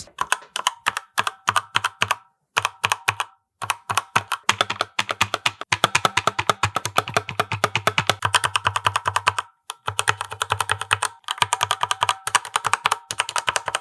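Typing on an MSI GK50Z budget mechanical keyboard with linear black switches: rapid, dense runs of keystrokes, broken by a few brief pauses.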